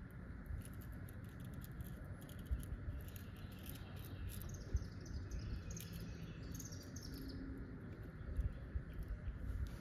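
Faint clicks and rustles from handling a new thermostat while its rubber gasket is slid on by hand. A bird chirps briefly a few times in the middle, against a low background rumble.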